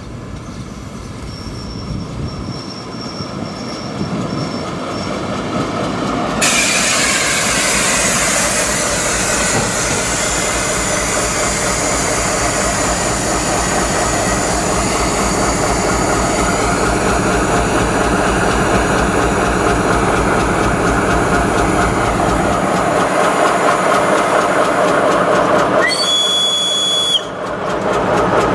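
Ganz-MÁVAG D1 diesel multiple unit drawing up: its engine and wheels grow steadily louder as it approaches, then turn suddenly louder about six seconds in and run loud and steady as the cars roll by close at hand. Near the end a short high squeal sounds, then cuts off.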